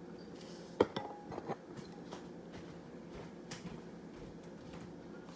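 A sharp clink of something hard striking a non-plastic bowl about a second in, followed by a brief ring and a few lighter clinks, then faint scattered taps.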